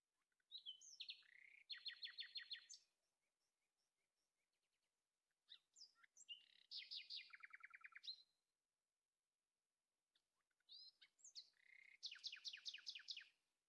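Faint bird song: three phrases, each a few quick slurred whistles running into a fast trill of repeated notes, about eight a second.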